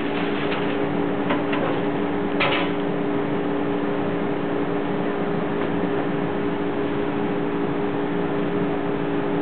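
Steady mechanical hum with an even hiss, and a few faint brief knocks in the first three seconds.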